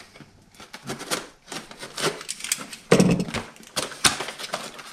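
Deadbolt packaging and parts being handled: irregular rustling and light clicks, with a louder knock about three seconds in.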